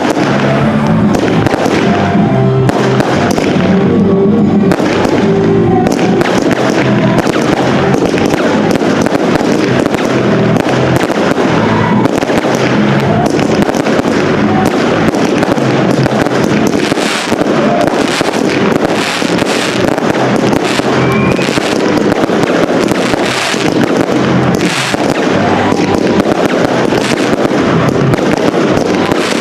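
A dense fireworks barrage: aerial shells bursting one after another with crackling stars, the bangs overlapping almost without pause. Music plays under the bangs, plainest in the first few seconds.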